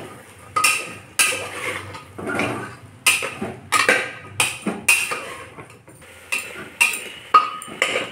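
A steel spoon knocking and scraping against the inside of a metal pressure cooker while stirring chickpeas and potato chunks into a thick masala: a string of sharp metallic clinks with a short ring, roughly two a second.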